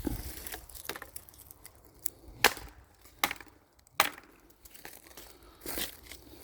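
Footsteps on dry forest floor, crunching leaves, with three sharp snaps of twigs breaking underfoot, the loudest about two and a half and four seconds in.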